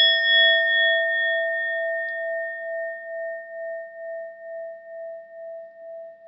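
Metal singing bowl ringing after a single strike, a steady tone slowly fading with a gentle wobbling pulse in its loudness. Its higher overtones die away within the first few seconds, leaving the low main tone.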